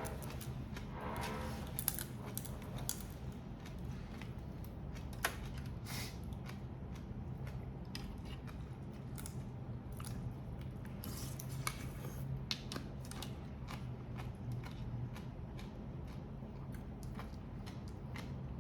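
Irregular clicks and crackles of grilled crab and prawn shells being cracked and peeled, mixed with chewing.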